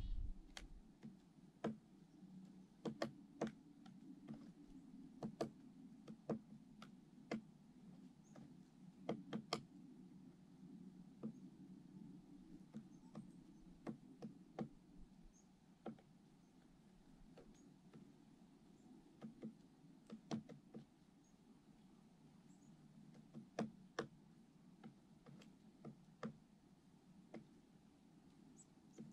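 Faint, irregularly spaced sharp taps, a couple of dozen of them, over a low steady hum.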